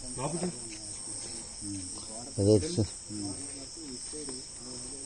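Steady, high insect chorus, with people talking in the background; one voice rises louder for a moment a little past halfway.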